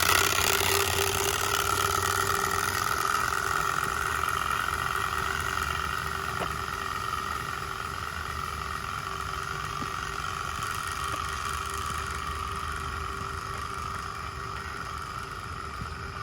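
Turbospoke bicycle exhaust noisemaker with its loudest insert, a plastic card flapping rapidly against the spinning spokes and buzzing like a small motorbike engine. It fades gradually, the sound of the bicycle riding away, louder when the back of the pipe points at the listener.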